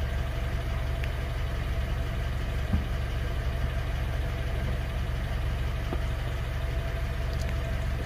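Second-generation Honda CR-V engine idling steadily at about 1,000 rpm, heard from inside the cabin: a stable idle with no hunting.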